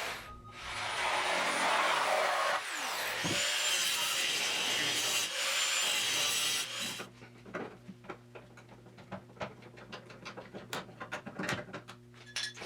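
Power cutting tool running as it cuts through the rusted steel of a Triumph TR6 frame, briefly easing off and picking up speed twice in the first few seconds. It stops about seven seconds in, followed by scattered light clicks and scrapes of metal being handled.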